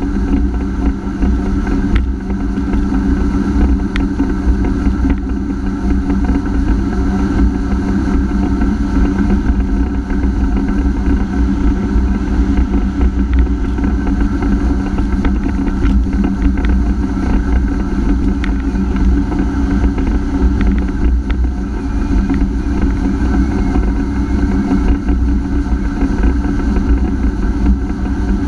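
Honda AquaTrax F-12X personal watercraft engine running at a steady speed, with a heavy low rumble underneath.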